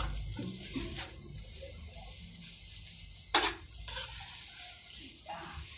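Noodles sizzling in a wok as a metal spatula stirs and tosses them, with a few sharp scrapes and clanks of the spatula against the pan, the loudest about three and a half seconds in.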